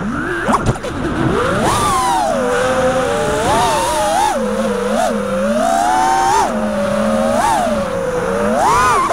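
Brushless motors of a 5-inch freestyle FPV quadcopter whining in flight, several pitches together rising and falling quickly as the throttle is punched and eased through dives and turns.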